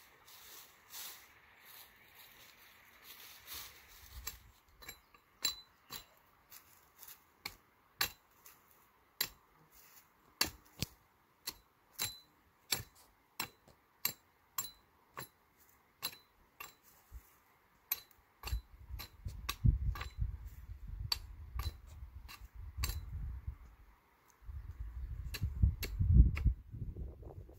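Hatchet chopping at the base of a thin upright sapling: a long series of sharp knocks, about one and a half a second, starting a few seconds in. A loud low rumble joins in the second half.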